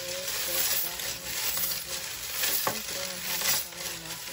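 A bowl of small charms being shaken and stirred: a loud, continuous jingling rattle that swells and eases about once a second.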